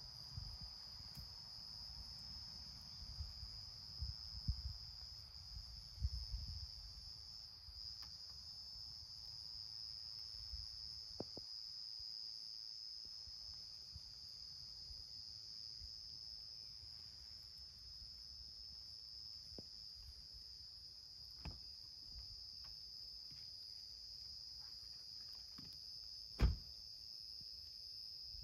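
A steady, high-pitched chorus of insects calling in a forest. Low rumbling sounds in the first several seconds, and a few scattered knocks, the loudest near the end.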